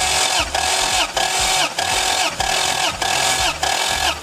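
Lexus IS300 straight-six cranked over on its starter motor with the spark plugs out, for a compression test of cylinder two. It makes an even, whining cycle about every 0.6 s, the whine falling in pitch each time. The gauge builds to about 13.4 bar against the 13-bar spec, so this suspect cylinder's compression is judged good.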